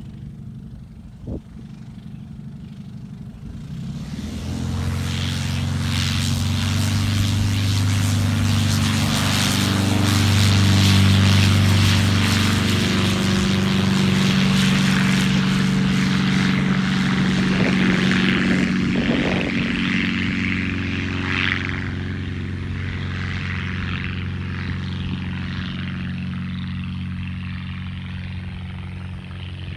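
Viking Dragonfly homebuilt light aircraft's propeller engine at full takeoff power during its takeoff run, a steady drone that swells about four seconds in as the plane comes down the runway, is loudest around ten seconds, then slowly fades as it climbs away.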